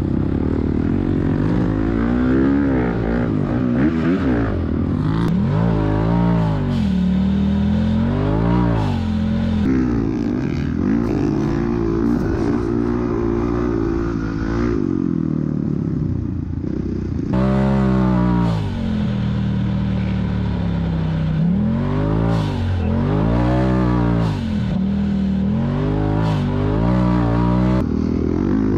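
Honda dirt bike's single-cylinder four-stroke engine revving up and falling back again and again as it is ridden through sand, with some knocks and clatter.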